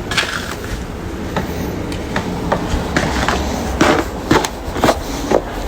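About ten short scraping strokes over a steady rushing background, growing louder and more frequent in the second half.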